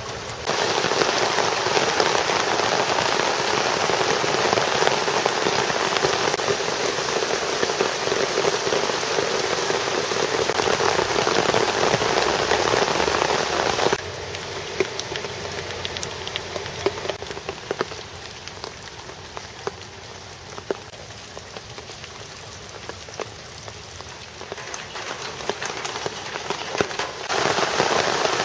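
Steady rain, with rainwater running off a downspout and splashing through the mesh screen on top of a plastic rain barrel in a loud, even hiss. About halfway through it drops suddenly to a quieter rain patter with scattered drop ticks. Near the end it turns loud again as water spills from a roof gutter.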